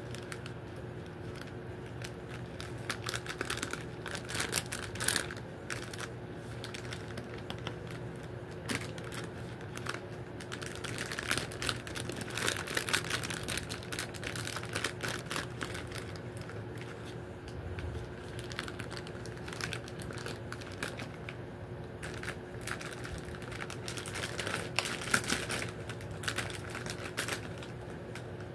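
Plastic wrappers of packaged popcorn balls crinkling in irregular bursts as they are handled and shifted, over a steady background hum.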